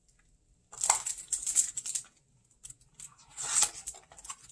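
A hardcover picture book being opened and its pages turned, rustling in two bursts: a longer one about a second in and a shorter one past the middle.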